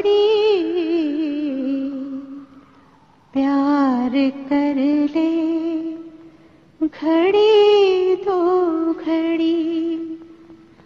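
A woman singing in an old Hindi film song, in three long phrases with held notes and strong vibrato, separated by short breaths. The accompaniment is very sparse under the voice.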